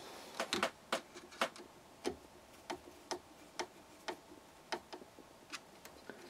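Screwdriver turning a bolt into tapped holes in a 3D-printed plastic block: a run of sharp clicks, about two a second, unevenly spaced.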